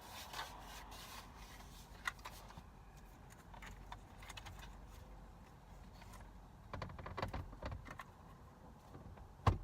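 Scattered small clicks and knocks of tools and parts being handled while a steering wheel is refitted, with a cluster of knocks about seven seconds in and one sharp knock near the end.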